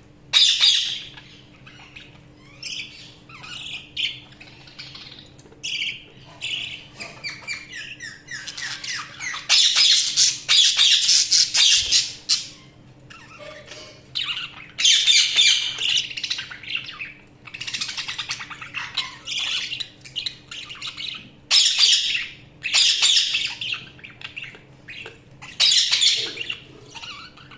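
Budgerigars chirping, chattering and squawking in bursts, with a long stretch of dense, rapid chatter in the middle.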